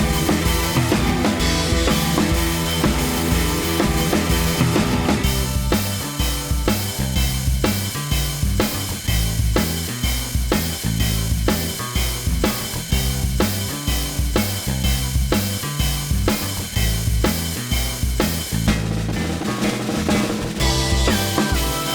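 Background music with a steady drum-kit beat, bass drum and snare over a bass line and sustained instrumental notes; the arrangement thins briefly about three-quarters of the way through.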